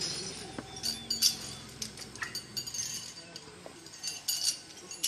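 Iron chain clinking and rattling in irregular runs of sharp jingles as it is handled around an elephant's leg, the loudest clinks about a second in.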